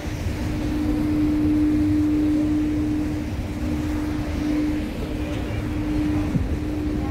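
Wind buffeting a phone's microphone on an open cruise-ship deck, with a steady low hum held under it that starts just after the beginning and dips briefly twice.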